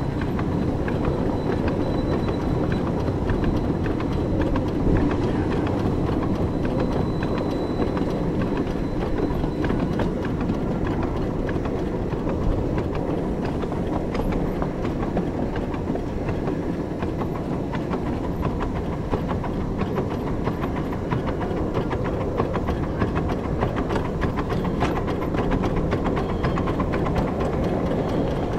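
Miniature ride-on railway train running on its track: a steady rumble with constant rapid clicking and knocking from the wheels and running gear.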